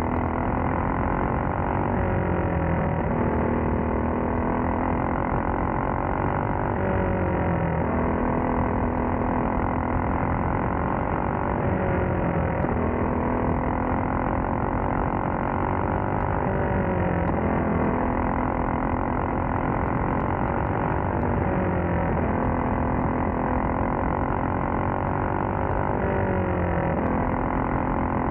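Caged racing kart's engine at racing speed, heard close up from onboard: the pitch climbs as it is held on the throttle, then drops off sharply when the driver lifts for a corner, over and over about every four to five seconds.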